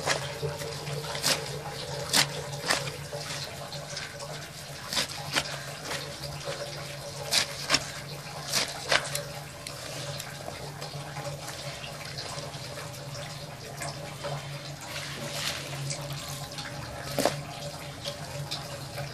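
Chopped leafy greens rustling and crunching as hands toss and squeeze them on a metal tray, with irregular sharp taps against the tray. A steady low hum runs underneath.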